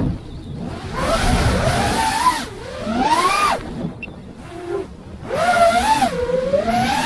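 5-inch FPV quadcopter's brushless motors whining as the throttle is punched and released: the pitch rises and falls away about four times, with quieter lulls between, over rushing air noise.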